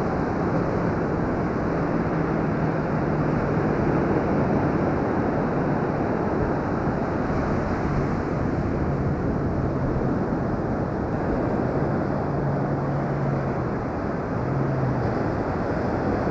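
Wind rushing over the microphone together with steady surf washing up the beach, an even rushing noise with no breaks. A faint low hum comes and goes several times.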